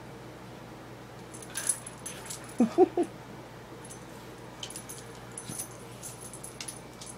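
Siberian husky giving three quick short whines, about three seconds in. Light sharp clicks of claws on a tile floor follow through the second half as the dog moves about with its toy.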